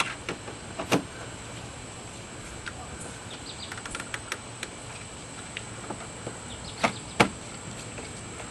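Scattered sharp metallic clicks and light ticks of a hand tool working on a car door latch's screws as they are tightened. The two loudest clicks come close together near the end.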